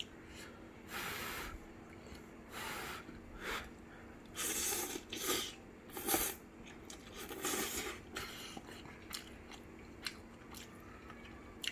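Person eating instant ramen noodles up close: chewing and mouth noises in irregular short bursts, roughly one a second.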